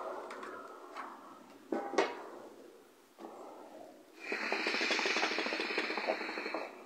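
Keyboard melodica blown through its long mouthpiece tube: a short note and a sharp knock in the first half, then a chord of several keys held for about two and a half seconds.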